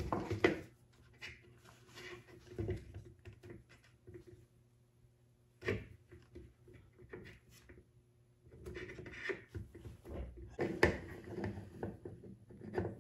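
Small RC model parts being handled and fitted by hand: scattered clicks, knocks and rubbing. The sounds come in louder clusters at the very start, about six seconds in, and through the last few seconds.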